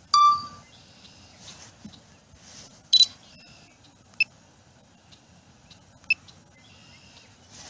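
Drone controller app sounds: a short electronic beep right at the start, then about three seconds in a loud double camera-shutter click as a photo is taken, with a few short faint ticks later on.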